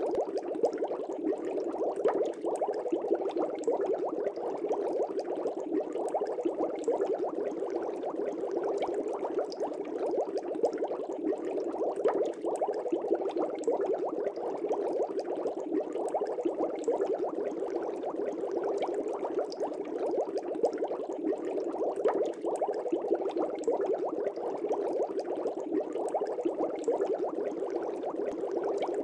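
Fish tank air bubbles rising through the water, a steady unbroken bubbling.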